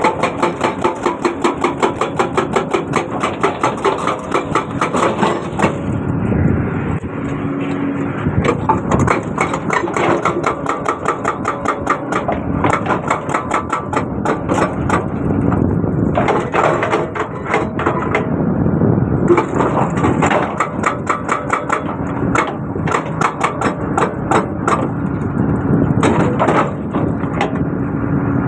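Excavator-mounted hydraulic breaker hammering in runs of rapid, evenly spaced blows, pausing briefly several times, over the excavator's engine running.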